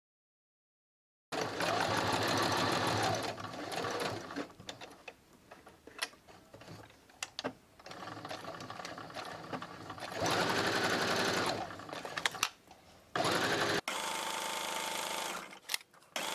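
Domestic electric sewing machine stitching a seam. It starts about a second in and runs in several short bursts, stopping and restarting, with small clicks of handling between the runs.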